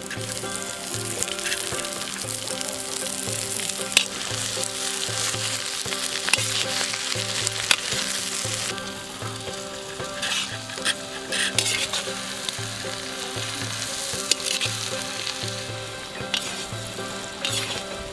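Sliced onions sizzling steadily as they fry in deep hot oil in a large iron wok, with a metal spatula scraping and clinking against the pan now and then as they are stirred.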